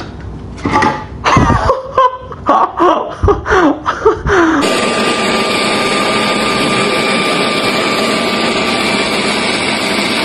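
Short vocal sounds that rise and fall, then, from about four and a half seconds in, a YardWorks leaf blower running steadily: a rushing hiss with a thin high whine.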